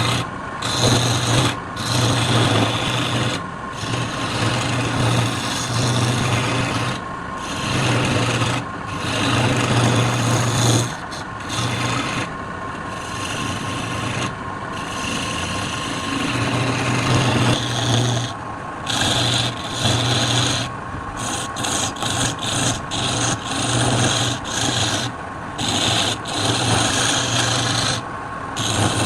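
A turning tool or abrasive rasping against a piece of wood spinning on a lathe, in repeated passes broken by many short pauses.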